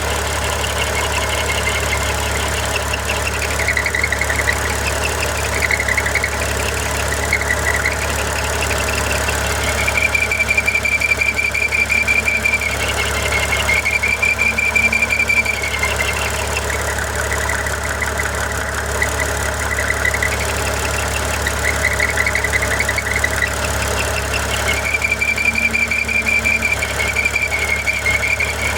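2013 Audi A6 3.0T's supercharged V6 idling while its supercharger drive belt, a Continental 7PK1370 on an oversized 207 mm JHM crank pulley, squeals in a high tone that comes and goes. The squeal wavers and chirps at times and holds steady for a couple of seconds about ten seconds in, again around fourteen seconds and near the end, as the belt tension is eased and added back by hand. The squeal is the sign of the belt slipping on the pulley.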